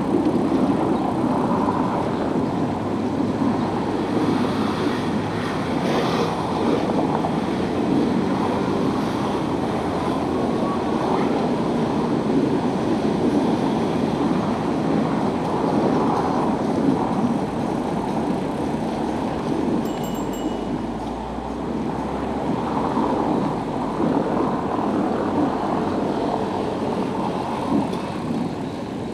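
Steady rushing road noise of a bicycle ride beside city car traffic, rising and falling without a break. A brief high-pitched ring sounds about two-thirds of the way through.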